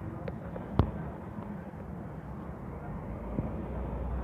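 A sharp knock about a second in, with a lighter click just before it and a weaker one near the end, from hands working the orchid and its stakes in the pot, over a steady low outdoor rumble.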